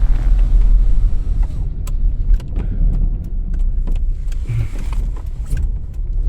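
Inside a moving car: a steady low engine and road rumble, with scattered light clicks and taps through the second half.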